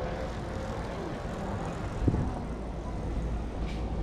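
Street ambience: a steady low rumble of vehicle traffic, with a single thump about two seconds in.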